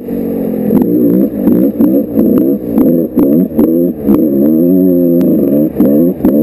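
Big-bore Yamaha YZ125 two-stroke single-cylinder engine revving up and down in quick repeated bursts, about two a second, as the dirt bike is ridden along a rough trail. Sharp knocks and clatter sound through it.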